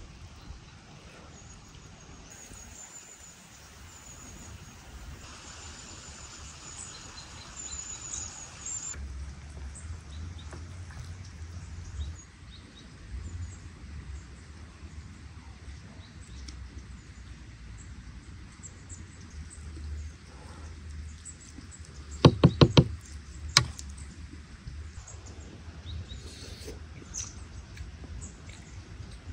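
Steady outdoor background with faint high chirps, broken about two-thirds of the way in by a quick run of four sharp knocks and a single fifth knock a second later.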